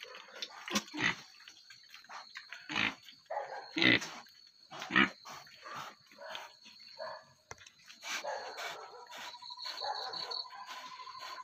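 A sow in labour grunting in short, irregular bursts, with a few sharp knocks, over crickets chirping steadily. A pulsing insect trill joins about nine seconds in.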